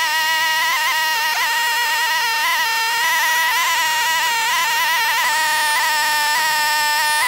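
Gas chainsaw running at full throttle at a steady high pitch, ripping lengthwise through a cherry log on a chainsaw mill.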